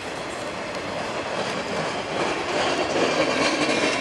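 Slow-moving freight train: loaded gondolas rolling on the rails with a steady rumble and wheel clatter, growing louder about halfway through as the SD40-2 diesel locomotive draws near.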